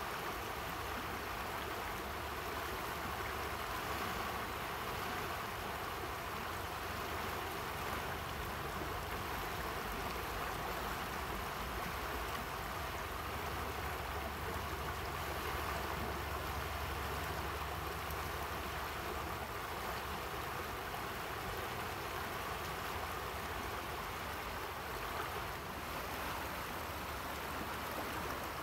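Steady rush of flowing river water, an even noise with no breaks.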